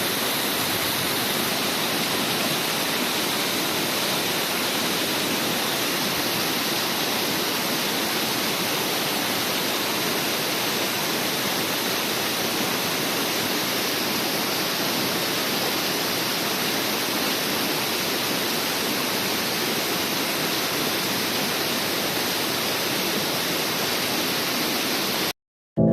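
Waterfall, water pouring steadily as an even rushing noise, which cuts off abruptly near the end.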